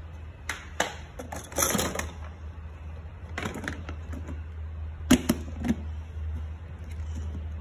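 Plastic toys and objects clicking and knocking against a plastic storage box as they are handled, in scattered clusters, with the sharpest pair of knocks about five seconds in. A low steady hum runs underneath.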